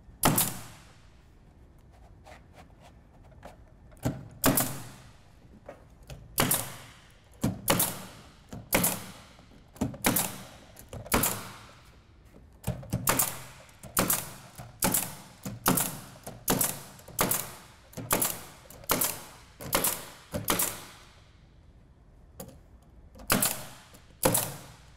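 Pneumatic cap nailer driving plastic button-cap nails through thick roofing felt underlayment into plywood: a long run of sharp shots, roughly one or two a second, with a pause near the start and another shortly before the end.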